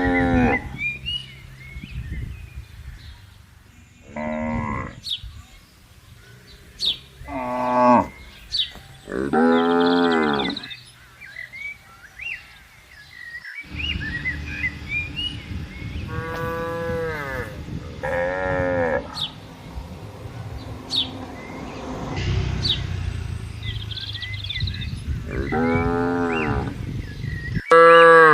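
Cattle mooing repeatedly: about eight separate drawn-out calls, each a second or so long, with pauses between them.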